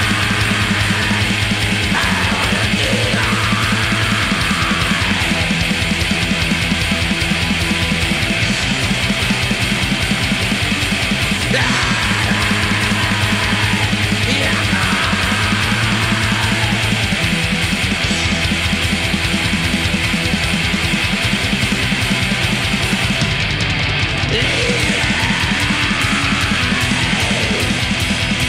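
Black metal recording: distorted guitars over fast, dense drumming, loud and unbroken.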